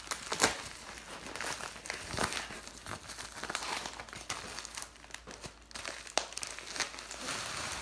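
Plastic bubble mailer crinkling and rustling as it is handled, with irregular sharp crackles, the loudest about half a second in.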